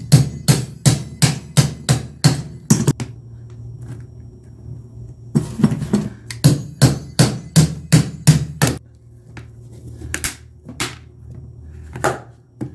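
Sharp knocks at about four a second, in two runs of some three seconds each with a pause between, and two more near the end. The sound is a screwdriver being tapped into the seam between a sealed car battery's plastic lid and its case to split them apart.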